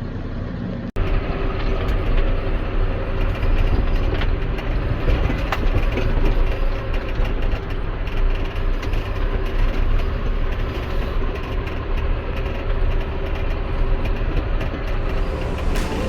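Tractor running with the steady mechanical clatter and rattle of a muck spreader's chain and beaters working. The sound cuts out for an instant about a second in, then carries on.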